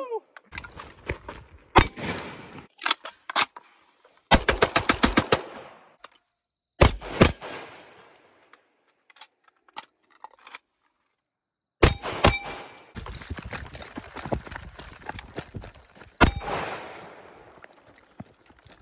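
Gunshots from an AK-pattern rifle fired at close-range steel targets: single shots and pairs, a fast string of about eight shots around four seconds in, and the ring of struck steel after some hits. A quiet gap of a few seconds falls in the middle before the firing resumes.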